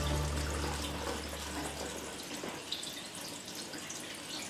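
Kitchen tap running into a sink, a steady splashing hiss; background music fades out over the first two seconds.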